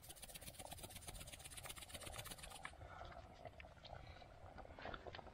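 Faint sizzling and crackling of food frying in a pan over a campfire. The crackle is dense for the first two and a half seconds, then thins to scattered ticks.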